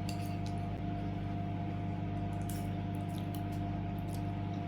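A steady low hum, with a few faint light clicks and clinks of forks on plates during a meal.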